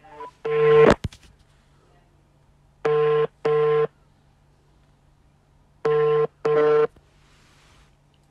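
Phone ringback tone on loudspeaker while an outgoing call rings unanswered: a short tone and a click near the start, then a double ring twice, about three seconds apart.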